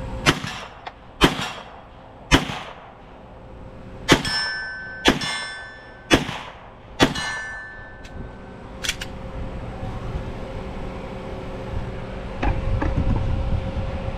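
Seven pistol shots from a Sig Sauer Spectre Comp 9mm: three about a second apart, then after a short pause four more at the same pace. Several are followed by the ringing clang of a steel target being hit, and a fainter crack comes near nine seconds in.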